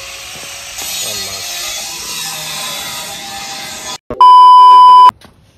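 A loud, steady beep tone, a censor-style bleep, lasting just under a second about four seconds in. Before it comes a steady hiss.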